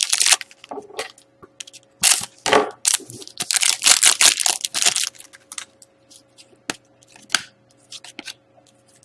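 A hockey card pack wrapper being torn open and crinkled, with loud rustling bursts for about the first five seconds. Scattered light taps and clicks of cards being handled follow.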